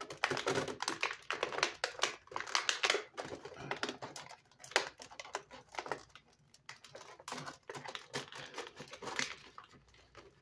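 Plastic blister tray and cardboard box of a boxed action figure being handled: crinkling, rustling and clicking as the figure is worked out of its package, busy at first and thinning out for a spell around the middle.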